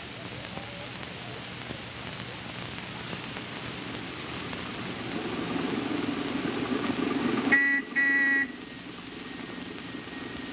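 School bus approaching, its engine growing louder, then two honks of its horn about three-quarters of the way through, the second one longer.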